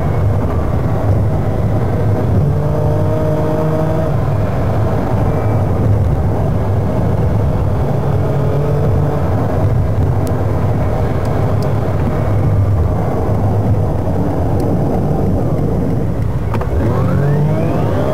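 Car engine and road noise heard from inside the cabin while driving, played back sped up about two and a quarter times. The steady rumble is overlaid by an engine note that rises and falls, with a rising sweep near the end.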